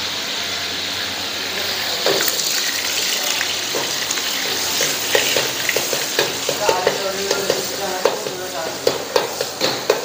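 Kailan with salted fish stir-frying in a hot wok: a steady sizzle, with a utensil knocking and scraping against the wok from about two seconds in, the knocks coming thicker toward the end.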